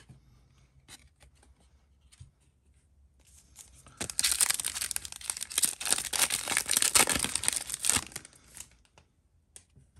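A trading-card pack's plastic wrapper being torn open and crinkled for about four seconds, starting about four seconds in, after a few faint clicks of cards being handled.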